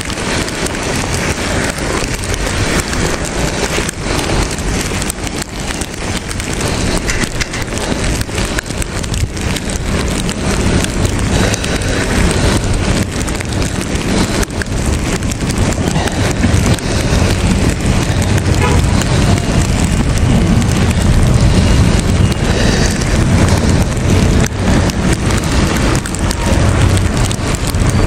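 Steady, loud rushing noise of wind and falling snow on the microphone of a bicycle rider. The low rumble grows stronger about halfway through.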